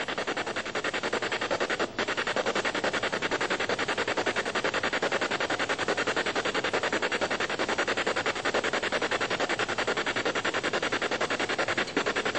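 Ghost-hunting spirit box sweeping through radio stations: steady radio static, chopped rapidly and evenly many times a second.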